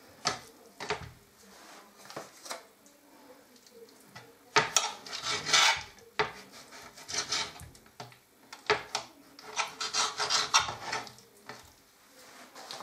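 Chef's knife cutting raw chicken thighs on a glass chopping board: irregular scraping strokes and taps of the blade against the glass.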